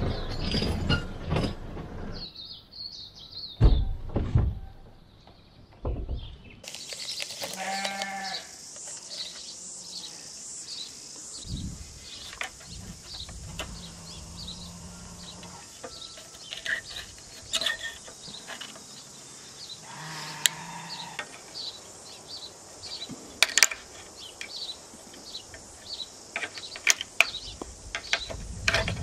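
A tractor engine running, with a couple of heavy clunks. After a cut there is a steady high outdoor chirring with rapid pulses, an animal calling twice and a few sharp clicks.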